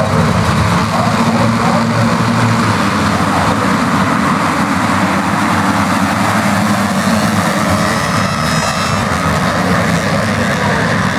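A field of motocross dirt bikes running together at a race start: a loud, steady mass of engine noise with no single bike standing out.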